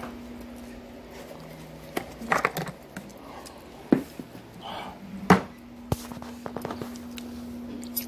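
A handful of sharp knocks and clinks from a ceramic plate and metal fork being handled, over a steady low hum.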